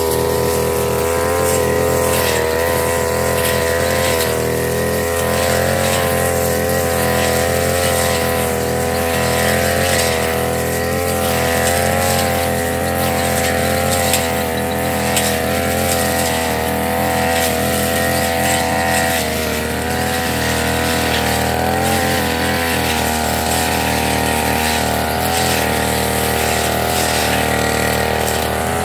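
Backpack brush cutter's small petrol engine running steadily at high speed as its cutting head slashes through weeds and grass, the engine note wavering slightly with each sweep.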